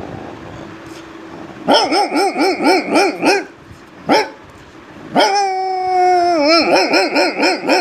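A man imitating with his voice a dog running up: a quick run of yelping barks about four a second, a single yelp, then a long held whine that drops in pitch and breaks into more quick yelps.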